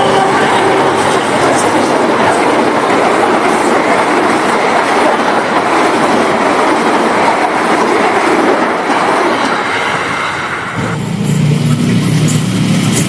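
Argo Parahyangan express train passing close at speed: a loud, steady rush of wheels on rail and moving carriages. About eleven seconds in the sound changes to a lower rumble.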